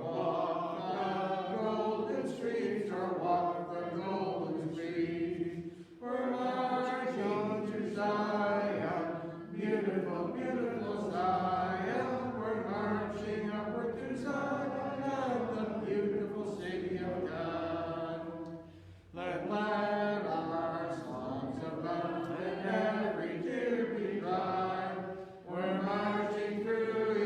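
Church congregation singing a hymn together a cappella, with no instruments, in long sung lines that have brief pauses between phrases.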